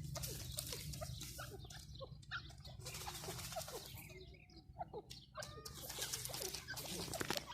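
Grey francolins (teetar) making faint, short scattered calls and chirps, many small notes rather than one loud song.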